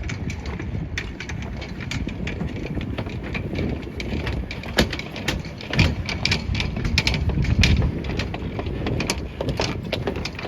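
City street ambience: a steady low rumble with many short, irregular taps and clicks over it.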